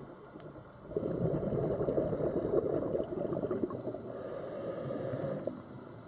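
Scuba diver's exhaled breath bubbling out of the regulator, heard underwater: a gurgling rush of bubbles that starts about a second in and lasts some four seconds.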